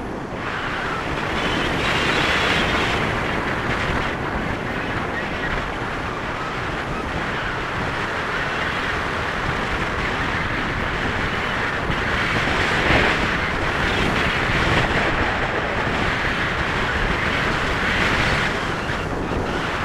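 Airflow rushing over the camera's microphone on a tandem paraglider in flight: a steady rushing noise that swells a few times.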